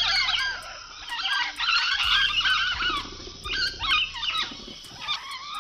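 Parrot squawking: a run of harsh, loud calls that bend up and down in pitch, coming in several bouts with short gaps, then cutting off abruptly at the end.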